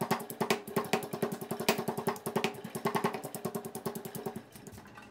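Granite pestle pounding a coarse curry paste of dried chillies, lemongrass, garlic and shallots in a granite mortar: rapid, even strokes, about five or six a second, growing quieter in the last half-second.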